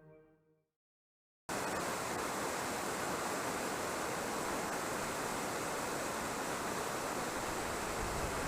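Waterfall's steady rushing of falling water, an even unbroken noise that cuts in abruptly about a second and a half in after a moment of silence.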